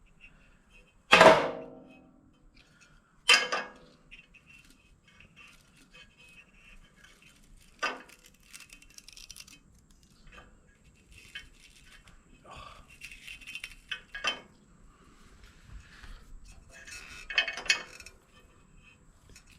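Metal hand tools being handled and set down: a scattered series of clinks and knocks, the loudest a ringing metal clank about a second in.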